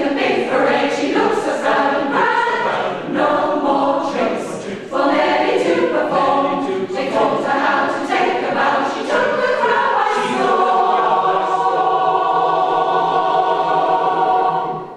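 Mixed choir of men and women singing a cappella, moving through changing phrases and then holding one long chord for about four seconds, cut off sharply at the end.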